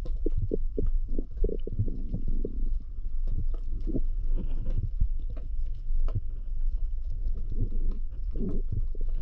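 Muffled underwater sound heard through an action camera's waterproof housing: a steady low rumble of moving water with irregular soft knocks and clicks.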